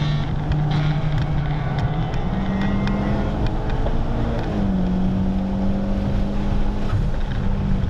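Mitsubishi Evo X's turbocharged four-cylinder engine running at speed, heard from inside the cabin over steady wind and road noise. The engine note rises about two seconds in and dips briefly a little past halfway.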